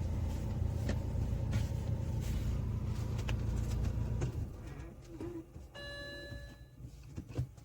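BMW N46 four-cylinder petrol engine idling with a slight misfire, which the fault codes trace to a faulty Valvetronic servo motor; about four seconds in it is switched off. Shortly after, a short electronic beep sounds.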